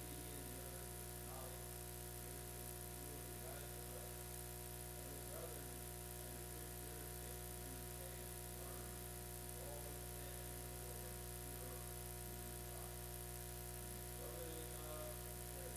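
Steady electrical hum and buzz on the audio feed, with faint music wavering underneath.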